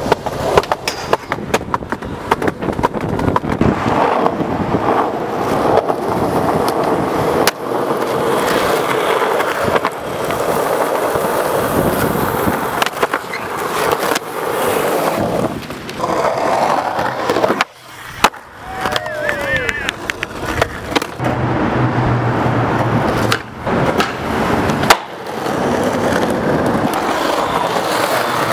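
Skateboard rolling on concrete and pavement: a steady gritty rumble of the wheels, broken by many sharp clacks of the board popping, hitting and landing. The sound dips briefly about two-thirds of the way through.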